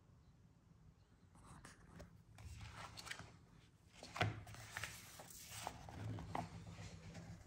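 Paper rustling and tapping as the pages of a printed catalogue are handled and turned, starting about a second in, with one sharper tap about four seconds in.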